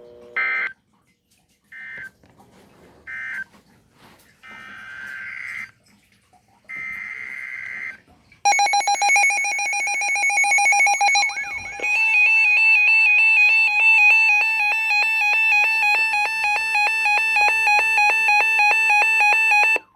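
Electronic emergency-alert tones: a few short chirping tone bursts, then about eight seconds in a loud, rapidly pulsing electronic alarm that switches to a busier, warbling pattern about four seconds later and keeps sounding.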